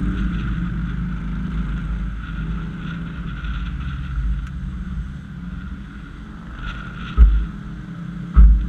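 Low engine and road rumble from a 2010 Honda CR-V, with wind buffeting the bonnet-mounted camera's microphone, easing as the car slows to a stop in traffic. Near the end there are two loud, low thumps about a second apart.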